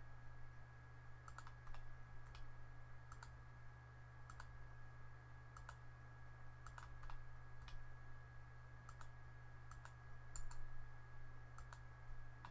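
Computer mouse button clicking faintly about fifteen times at irregular intervals as lines are picked one by one to trim. A steady low electrical hum and a thin high tone run underneath.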